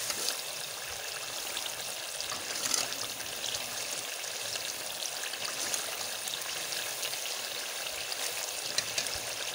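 A masala of browned onion, yoghurt, spices and lemon juice sizzling steadily in ghee in an aluminium karahi as it fries down, with a few light clicks and scrapes from a metal slotted spoon stirring it.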